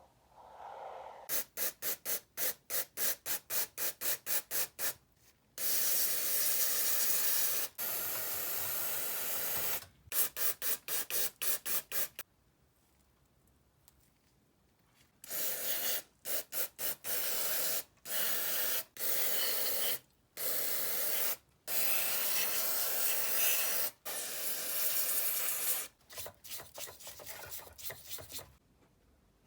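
Hissing bursts of pressurised spray: runs of quick short puffs, about three a second, alternate with long sprays of a few seconds each, with a quiet pause near the middle.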